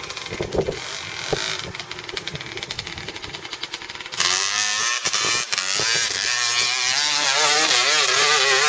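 Dirt bike engines revving on a steep hill climb, the pitch rising and falling again and again as the throttle is worked. About four seconds in, the sound jumps abruptly louder to a closer bike revving hard.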